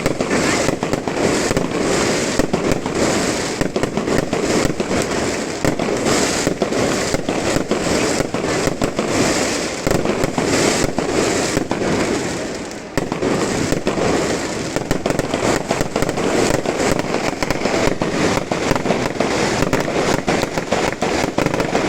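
Fireworks display: a dense, continuous barrage of bangs and crackling, easing briefly about thirteen seconds in before picking up again.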